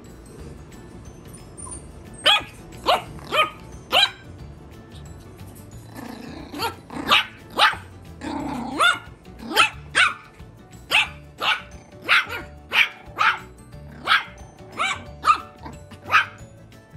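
Yorkshire terrier puppy barking with high-pitched yaps: four quick barks about two seconds in, then a longer run of about sixteen, roughly two a second, from about six seconds on.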